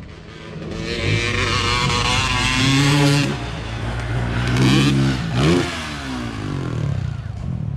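A motor vehicle engine revving, climbing in pitch for about two seconds, dropping back, then revving up again about five seconds in, with a hissing rush during the first climb.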